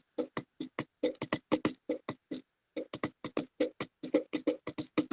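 Fingers drumming a fast rhythm on a small container, quick sharp taps several a second, with a brief pause about two and a half seconds in.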